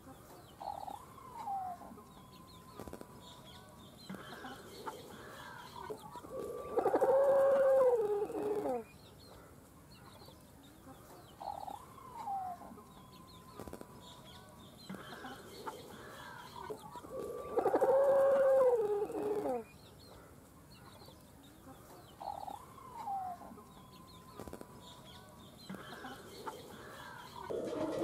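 Domestic chickens calling: a few short clucks, then a long, loud call lasting about two seconds. The same sequence comes three times, about every eleven seconds.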